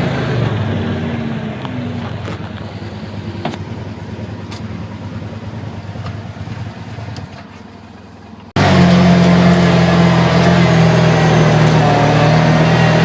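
ATV engine running and fading away over about eight seconds, with a few faint clicks. Then an abrupt cut to loud, steady ATV engine noise up close.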